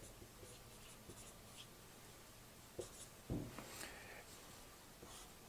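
Faint dry-erase marker strokes squeaking on a whiteboard, followed a little past three seconds in by a brief soft thump.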